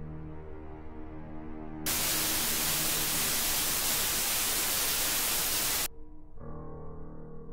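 Held, sombre music tones, broken about two seconds in by a loud burst of TV static hiss that lasts about four seconds and cuts off suddenly; the held music tones come back near the end.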